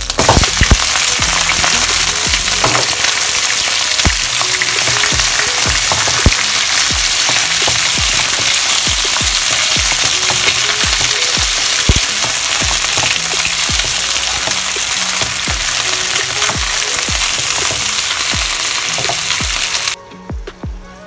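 Raw chicken wings hitting hot oil in a wok with ginger slices and frying with a loud, steady sizzle as a spatula turns them. The sizzle starts at once and cuts off suddenly near the end.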